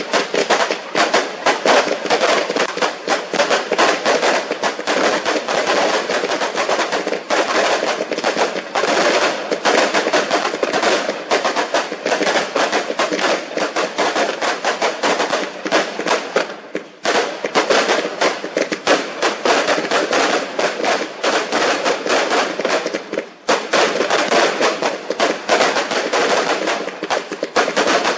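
Fireworks going off in a dense, continuous barrage of rapid bangs and crackles, with two brief lulls about 17 and 23 seconds in.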